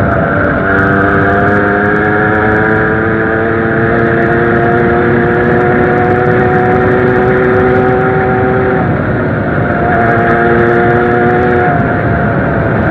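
Zanella 70cc two-stroke moped engine running under way, its pitch climbing slowly as it pulls for about eight seconds, then easing off briefly twice, about nine seconds in and again near the end.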